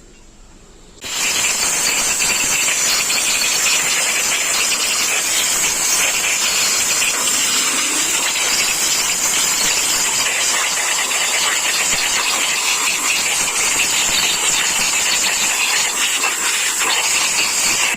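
A loud, steady hiss starts about a second in, holds without change and then cuts off abruptly.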